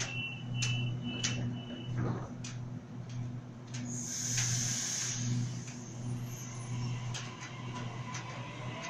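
Sydney Trains double-deck electric train at departure: its door-closing warning beeps stop about two seconds in and the doors shut with a clack. A loud burst of air hiss follows at about four seconds, over a steady low hum. Near the end the train moves off, its motors whining and rising in pitch.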